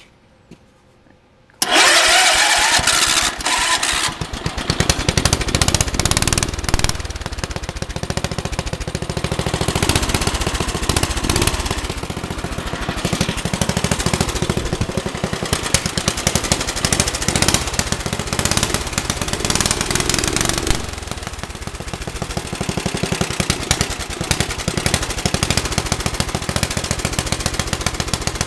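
Riding lawn mower's small engine, with a cut-down exhaust stack, firing up about a second and a half in, then running loud with a fast, choppy exhaust beat, its level rising and falling.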